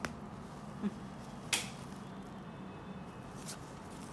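A few short clicks and rustles from hands fitting a small strap harness with a metal ring onto a cockatiel, over a steady low hum.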